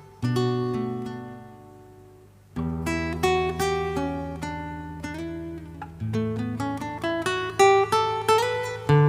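Acoustic guitar music, a chord ringing out and fading, then fresh strummed chords and plucked notes about two and a half seconds in.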